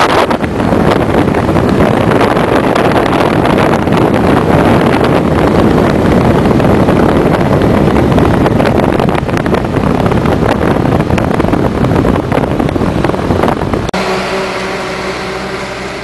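Steady rush of road and wind noise from a moving vehicle. About fourteen seconds in it cuts off abruptly, giving way to a quieter steady hum with a few held tones.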